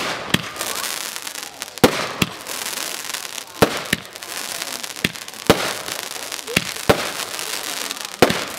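First Dynasty 19-shot firework cake firing shot after shot: sharp bangs in pairs about a third of a second apart, a pair every one and a half to two seconds, with a crackling hiss of the bursting stars between.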